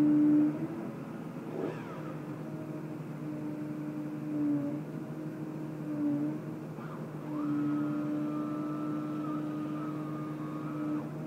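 Engine and hydraulics of a tree-felling crane with a grapple-saw head running: a steady humming drone that eases off and swells as the arm works, with a higher whine joining about seven seconds in.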